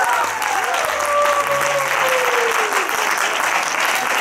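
Audience applauding, with a few voices calling out over the clapping in the first seconds.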